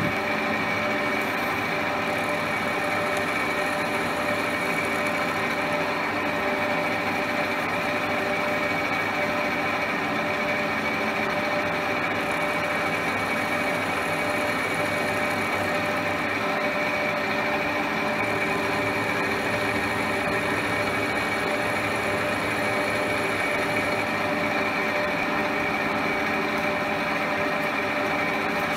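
Schaublin 52 tool room milling machine running steadily while milling a small part under manual feed, a constant whine of several tones from the spindle drive over the cutting noise.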